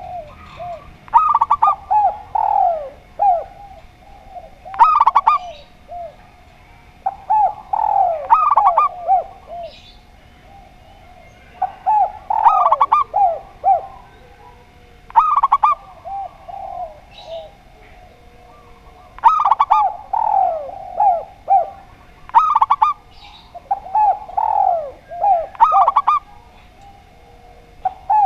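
Spotted dove and zebra dove singing: short phrases of quick, falling cooing notes repeated every few seconds.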